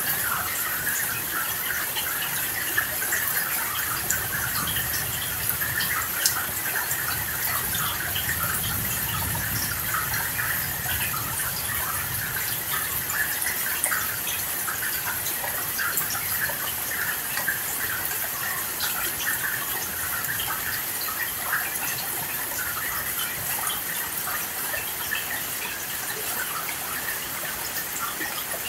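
Steady rain falling: a continuous hiss with dense, fine pattering of drops.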